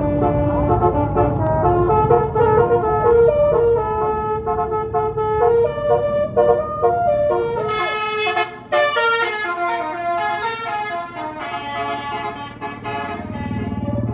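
Tour bus basuri telolet horn playing a tune of changing notes over the low rumble of the bus engine. About eight seconds in the rumble drops away and the horn notes turn brighter and shriller.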